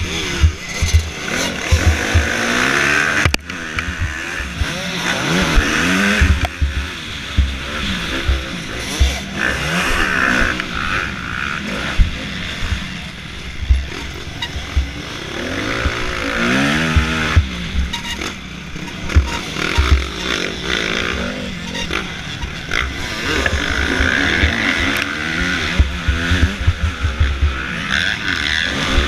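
Motocross bike engine heard from onboard, revving up and dropping back again and again as the rider accelerates and shifts, with other dirt bikes' engines close by.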